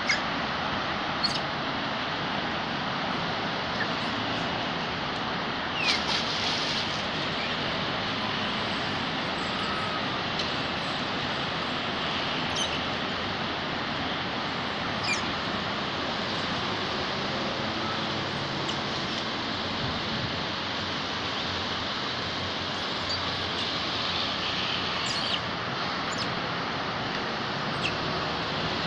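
Steady outdoor background hiss with a few brief high squeaks and clicks scattered through it, the brightest about six seconds in.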